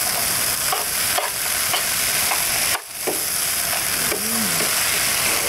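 Chopped sausage, maize, peas and greens sizzling in a hot frying pan as they are stirred, with small clicks and scrapes of the utensil against the pan. The sound dips briefly about three seconds in.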